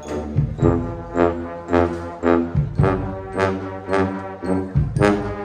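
Live brass band with sousaphone and drums playing a tune: a strong brass bass line under stacked horn chords, with a beat about twice a second.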